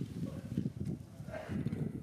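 Wind buffeting the microphone: a low, uneven rumble that comes and goes in gusts.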